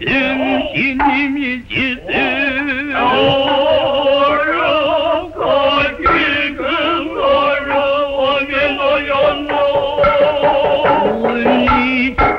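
Noh-style stage music from an old film soundtrack: chanted singing in long, wavering tones with heavy vibrato, joined by a few short, sharp strokes.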